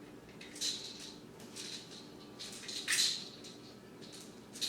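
Spray bottle spritzing: several short hissing sprays about a second apart, the strongest ones near the middle and the end.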